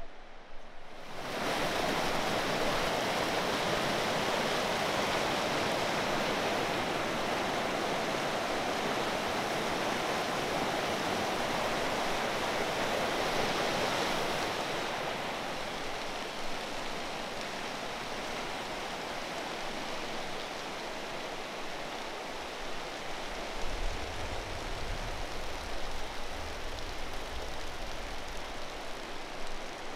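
Steady rush of flowing stream water, starting about a second in and growing a little softer about halfway through, with some low rumbling near the end.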